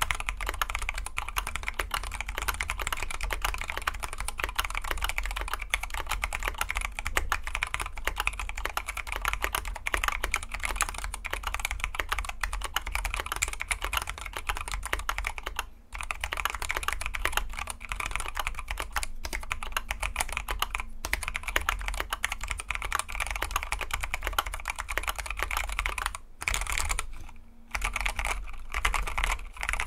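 Continuous fast typing on a KBD75v2 mechanical keyboard with lightly lubed Zealios v2 tactile switches and PBT keycaps: rapid keystroke clacks, pausing briefly about halfway and again near the end.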